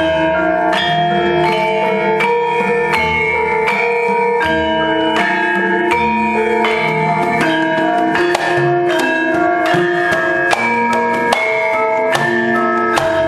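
Javanese gamelan ensemble playing: bronze metallophones and gongs ringing in a steady pulse with kendang drum strokes, accompanying a wayang kulit battle scene. A few sharp knocks stand out in the second half.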